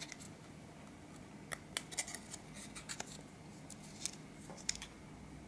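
Thin plastic Snakebite Hardcore dart flight being bent and handled between fingers, giving a handful of faint crinkling clicks scattered through the middle seconds.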